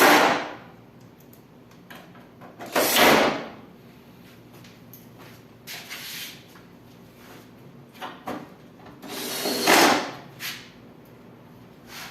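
Hand work on a window air conditioner being put back together: three short, loud rasping or scraping noises, at the start, about three seconds in and near ten seconds, with light knocks and clicks between them.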